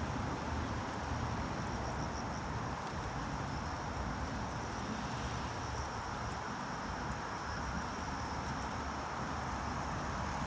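Steady rushing noise of a bicycle ride, wind on the microphone and tyres on brick paving, with a faint high insect trill that comes and goes.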